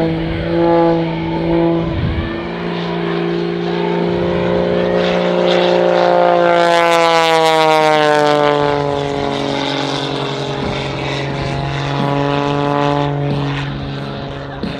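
Propeller-driven aerobatic biplane's engine and propeller passing close by, the pitch dropping as it goes past, loudest about halfway through.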